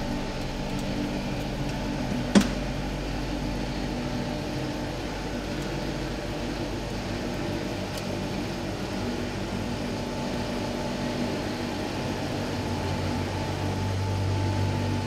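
Electric motor of a workshop vehicle lift running steadily as the car body is raised off its engine and gearbox, with one sharp click about two and a half seconds in.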